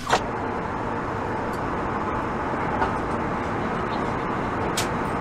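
Steady engine and air noise inside a jet airliner's cabin, an even rushing drone at a constant level.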